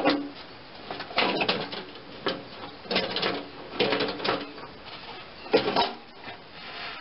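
Hands working on a lawn tractor's plastic fender and fuel tank: about six short, irregular bursts of rattling and scraping.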